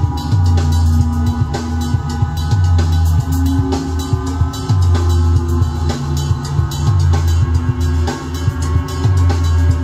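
Music with a drum kit and a heavy bass line, played from a CD through a Realistic MP-90 100-watt solid-state PA amplifier and its speakers.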